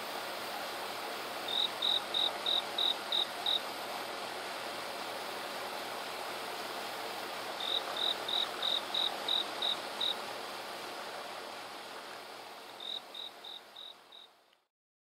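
An insect calling in three runs of short, evenly spaced chirps at one pitch, about seven chirps per run at roughly three a second, over a steady hiss; everything fades out near the end.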